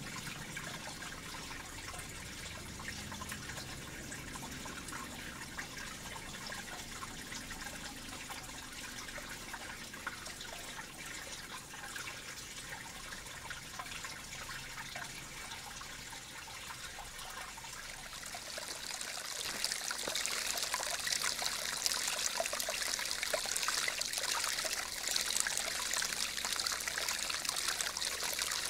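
Shallow forest brook trickling and splashing over stones and gravel. About two-thirds of the way in it becomes louder and brighter, with more splashing.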